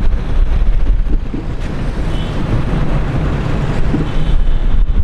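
Loud wind buffeting the microphone with a low road rumble, recorded from a moving car in traffic.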